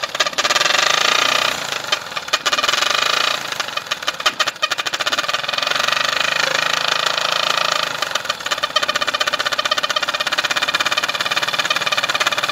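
Motorcycle engine idling with its exhaust blowing through plastic toy trumpet horns fitted over the silencer outlet, which change the exhaust note. A rapid, even pulsing with a steady high tone over it, rising and falling in loudness a few times.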